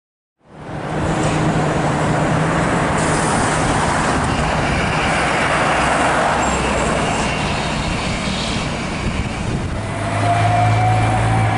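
City street traffic fades in: cars and a trolleybus pass, with steady road noise. About ten seconds in, a tram's motor whine starts slowly rising in pitch as the tram moves off.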